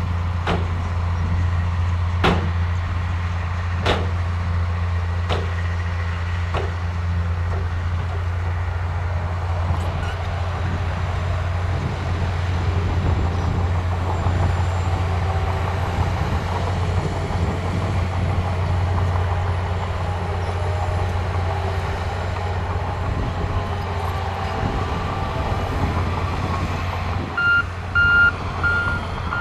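Diesel engines of a Shantui bulldozer and a dump truck running with a steady low drone, with sharp knocks about every second and a half for the first several seconds. Near the end a reversing alarm beeps repeatedly.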